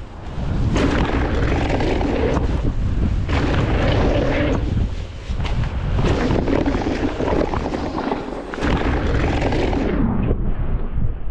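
Heavy wind buffeting on the camera microphone and the rush of a mountain bike's tyres over a dirt trail at speed. The noise drops off briefly a few times, and near the end the hiss is muffled for about a second.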